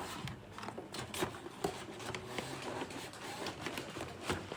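Scattered light clicks and taps at an irregular pace, like small objects being handled.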